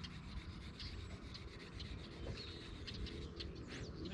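Hand-sanding a horn stick: continuous scratchy rubbing strokes of sandpaper.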